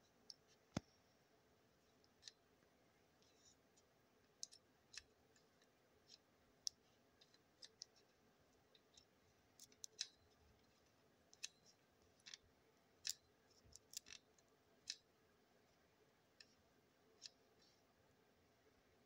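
Small push-buttons on a Soviet vacuum fluorescent tube clock pressed over and over to set the time: faint, sharp clicks at irregular intervals, some in quick pairs.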